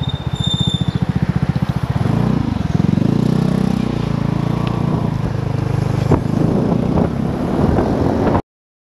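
Vespa GTS 250 i.e. scooter's single-cylinder four-stroke engine running at low speed with a pulsing beat, then rising in pitch about two seconds in as the scooter accelerates and holding there. A sharp click about six seconds in. The sound cuts off abruptly near the end.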